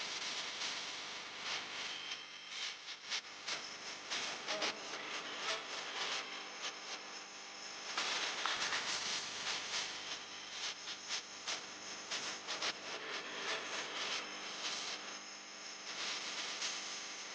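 Close-up handling noise: rubbing, scraping and many small irregular clicks over a steady hiss, typical of hands and tweezers working a small flex cable and phone parts.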